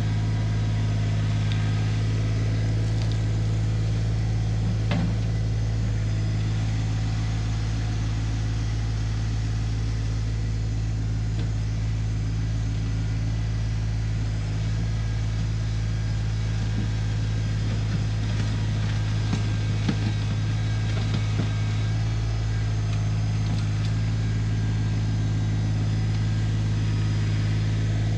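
New Holland Workmaster 25S compact tractor's three-cylinder diesel engine running at a steady speed as it works its front loader, with a few faint knocks.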